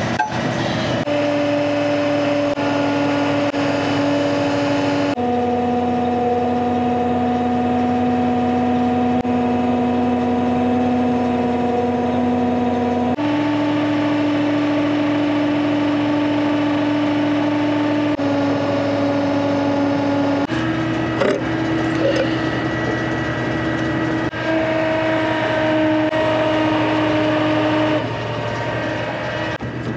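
Engine of a 1970 C50 crane truck running as its crane lifts a post. Its steady hum steps abruptly up or down in pitch several times as the crane is worked.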